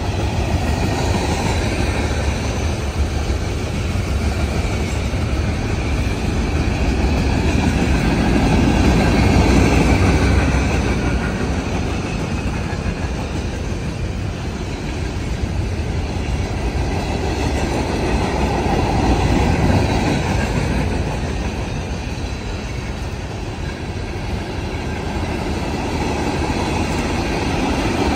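Freight cars of a passing manifest train rolling by: a steady rumble and clatter of wheels on the rails, swelling louder twice.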